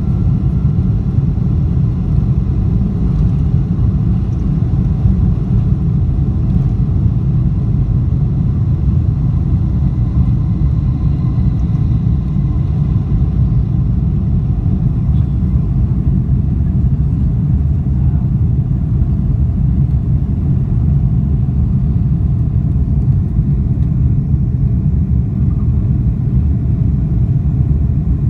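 Boeing 747-400 airliner heard from inside the cabin during its takeoff roll and initial climb: a loud, steady, deep rumble from its four engines at takeoff thrust.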